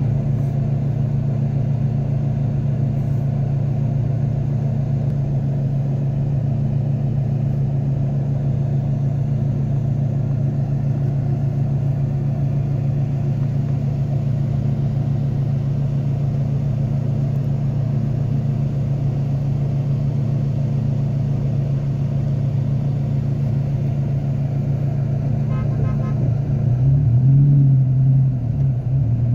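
A car engine idling with a steady low hum; near the end its pitch rises and wavers as it is revved.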